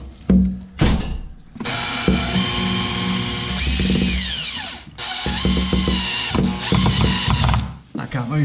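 Cordless drill driving screws through a steel prop's head plate into a timber plank: two short bursts, then two longer runs of a few seconds each, the motor whine falling in pitch near the end of the first run.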